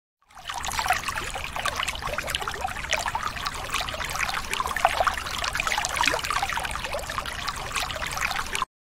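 Water heard underwater: a steady hiss thick with small crackling clicks and pops. It starts shortly after the beginning and cuts off suddenly near the end.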